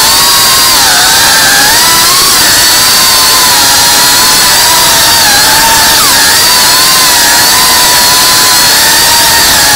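FPV quadcopter's motors and propellers whining loudly as it flies, the pitch wavering up and down with the throttle and dropping sharply and recovering about six seconds in, heard from the drone's onboard camera.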